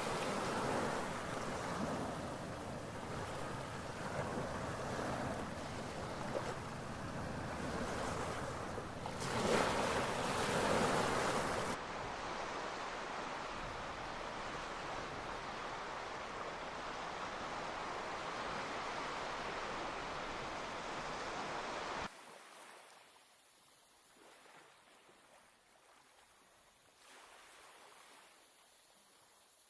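Sea surf washing in, with wind buffeting the microphone and one louder surge about ten seconds in. The sound changes abruptly about twelve seconds in, then cuts to a much fainter quiet outdoor background a little over twenty seconds in.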